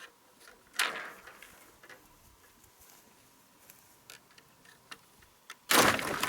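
Scattered light clicks and a knock, then, near the end, a sudden loud clatter of a bundle of sawmill slab wood falling and tumbling.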